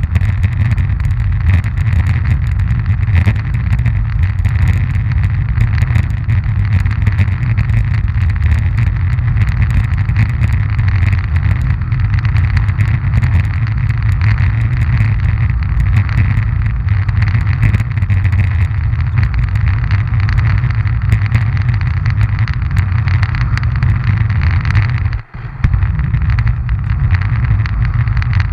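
Roller-ski wheels rolling over coarse-grained asphalt, picked up close by a ski-mounted camera: a steady loud rumble with a scatter of small clicks. The sound cuts out for a moment near the end, then carries on.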